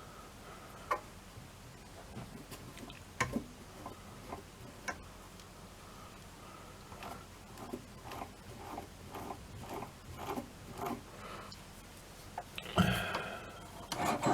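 Small metal clicks and short scraping creaks of a 10 BA screw thread being cut by hand on a stopped lathe, the threading tool guided from the tailstock, coming about two a second in the second half. A louder clatter of handling comes near the end.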